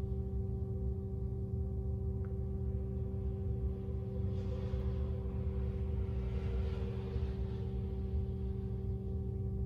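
A steady hum of several held tones over a low rumble, with a faint hiss rising and fading in the middle.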